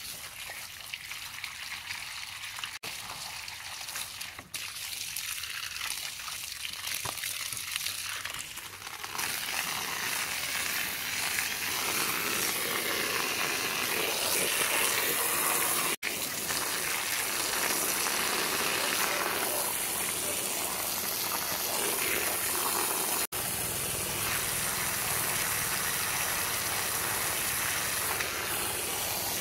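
Garden hose jet spraying water onto a car's AC condenser fins and cooling fan: a steady splashing hiss that gets louder about nine seconds in.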